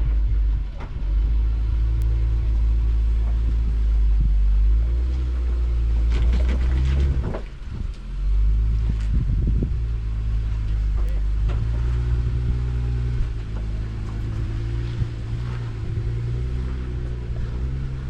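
Off-road 4x4 engine running at low revs with a deep rumble, its pitch shifting slightly now and then, with a short dip about eight seconds in.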